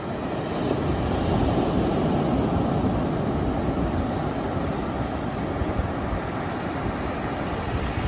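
Ocean surf breaking and washing up a sandy beach: a steady rush of wave noise that swells about a second in and then slowly eases.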